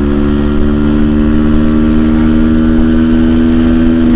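Honda TRX450R ATV's single-cylinder four-stroke engine running at a steady, high pitch while cruising in gear on the road.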